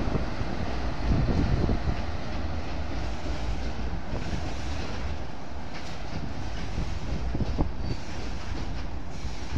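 Passing freight train: a WAG-7 electric locomotive followed by loaded flat wagons crossing a steel girder bridge, a steady heavy rumble of wheels on rails with faint clicks over the rail joints. The rumble is loudest a second or so in as the locomotive goes by.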